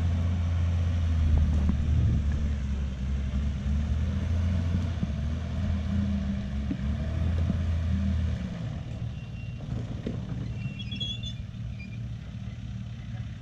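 A vehicle winch motor runs under load with a steady low hum, over an idling 4WD engine, then cuts off about eight seconds in, leaving the engine idling.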